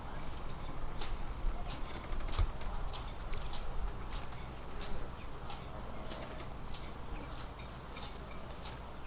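Sailboat winch ratcheting as a halyard is cranked to hoist a person up the mast in a bosun's chair: a steady run of short, sharp clicks, about two or three a second.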